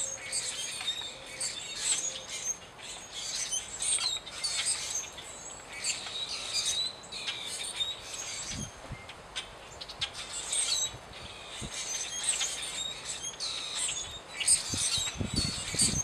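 A flock of blackbirds, common grackles and red-winged blackbirds, chirping and calling at a seed feeder. Many short, high chirps overlap throughout. A couple of low thumps come about halfway through and again near the end.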